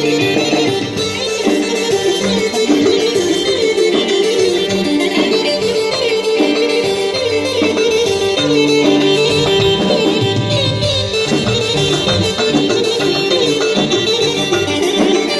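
Live band playing Albanian folk dance music (valle), with melody instruments over a moving bass line.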